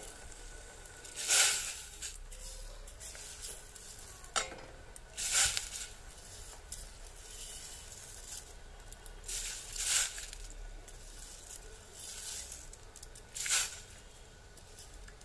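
Soaked rice poured into a steel pot of boiling water in four short, loud pours, with the water bubbling quietly between them.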